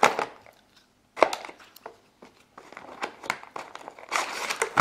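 Stiff clear plastic blister pack being cut and pried open with a folding knife: sharp crackles and clicks of the plastic, then a longer crinkling rustle near the end.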